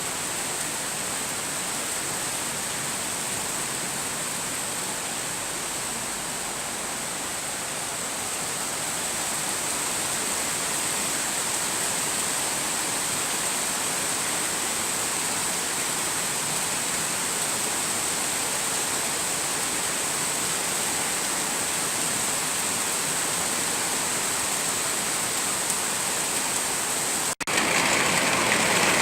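Steady rain falling, an even hiss. Near the end it cuts out for an instant and comes back louder and brighter.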